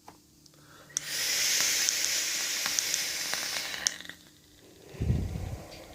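Clapton coil in a Pyro 24 RDTA sizzling with small crackles as it is fired at 75 watts for about three seconds, starting and stopping sharply. About a second later comes a short low puff of breath.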